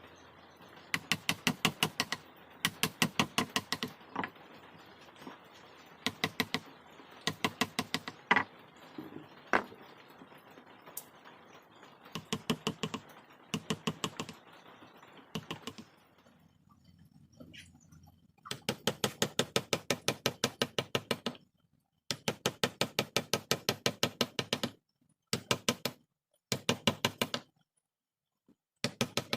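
Rapid, light mallet taps on a wood-carving chisel or gouge cutting into hardwood, about ten taps a second. The taps come in short runs of one to three seconds with brief pauses between them.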